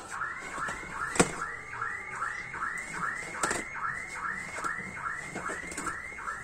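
An electronic alarm tone chirping over and over, each chirp sweeping up and back down, a little over two chirps a second. Two sharp knocks stand out, about a second in and again about three and a half seconds in.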